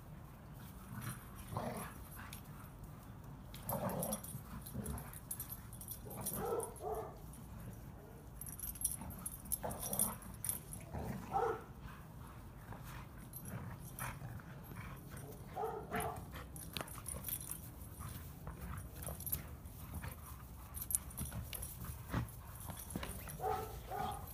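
Two dogs, a golden retriever and a smaller brown dog, play-fighting, with short high-pitched vocal calls coming every few seconds among scattered clicks and scuffles.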